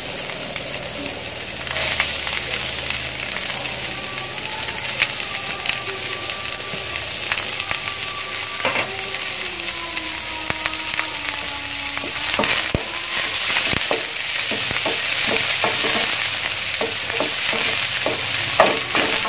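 Chopped onions sizzling in hot oil in a pan, a steady hiss. From about two-thirds of the way in, a spatula scrapes and knocks against the pan in many short strokes as the onions are stirred.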